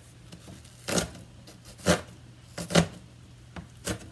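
A large chef's knife mincing onion on a cutting board: about six sharp knocks of the blade on the board at an uneven pace, over a faint steady low hum.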